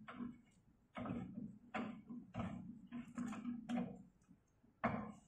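Metal pedal spindle being turned by hand into an elliptical trainer's crank arm, its clockwise thread giving a series of short clicks and scrapes, roughly one every half second to a second.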